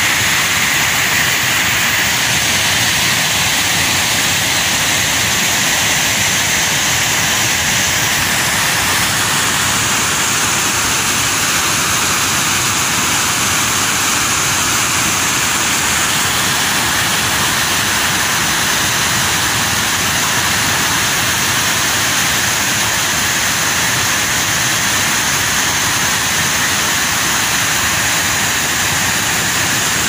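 Steady rushing of river water pouring over a concrete weir, a continuous loud hiss with no breaks.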